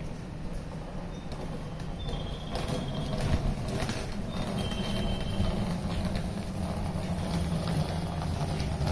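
Electric train moving along the platform track: a steady low rumble of wheels on rail with light clatter, growing a little louder partway through, with two brief high squeals.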